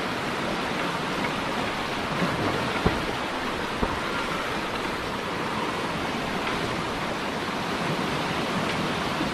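Fast floodwater of a swollen river rushing past, a steady, even noise, with two brief thumps about a second apart near the middle.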